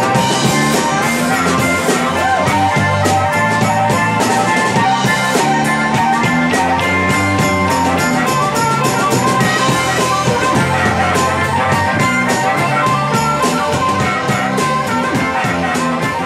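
Rock music played by a band: drum kit keeping a steady beat under guitar and other sustained instrument lines.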